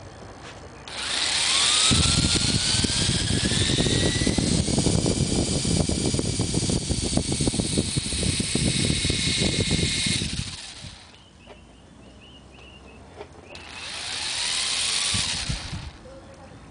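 Electric RC helicopter motor spinning up with a rising whine, rotor blades chopping as it lifts off. It runs for about nine seconds, then winds down. A few seconds later a second, shorter spin-up with another rising whine.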